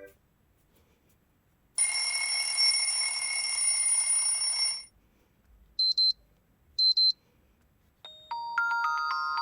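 Stock Poco X5 Pro phone ringtones played in turn: a steady buzzing ring tone of several fixed pitches for about three seconds, then two short high beeps a second apart, then a tune of short pitched notes starting near the end.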